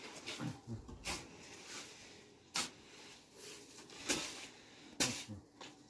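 A series of four sharp knocks or taps, roughly one every second and a half.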